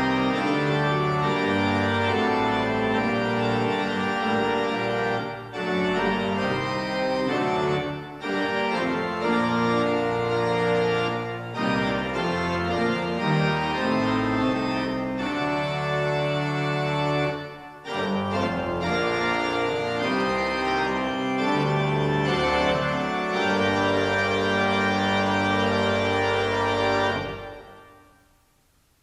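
Church organ playing a postlude of sustained chords, with a few brief breaks between phrases; it fades out near the end.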